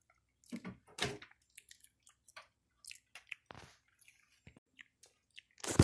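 Java macaque making close mouth sounds: scattered smacks and clicks of lips and tongue, with a louder burst of sound near the end.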